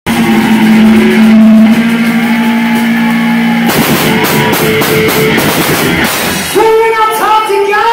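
Live rock music played loud on electric guitar and drum kit. A held guitar chord rings for the first half, then the drums and cymbals crash in about halfway through. New bending guitar notes start near the end.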